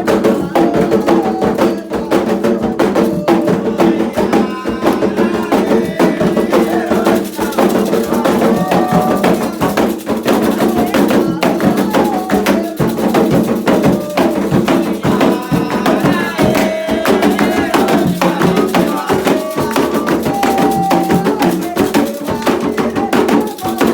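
Candomblé ritual music: fast, dense hand drumming on atabaque drums with a clacking struck-percussion beat and singing voices wavering over it.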